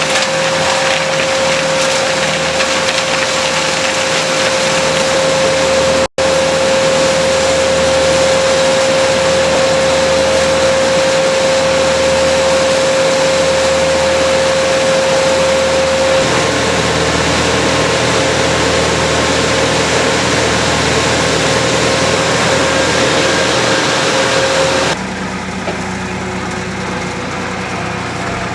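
Small engine on tree-work power equipment running steadily at high speed with a constant whine, cutting out for an instant about six seconds in. Near the end it gives way abruptly to a quieter engine sound.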